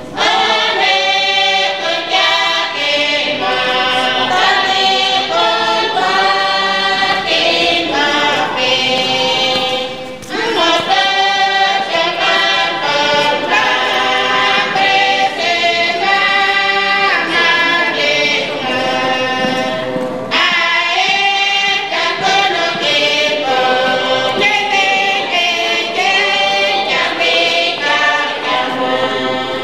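A choir of voices singing together, unaccompanied, with a brief break about ten seconds in.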